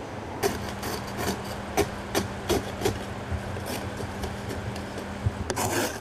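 Ice scraper scraping ice off a car window in short, irregular strokes, about two a second, starting about half a second in and coming faster near the end, with a faint low hum underneath.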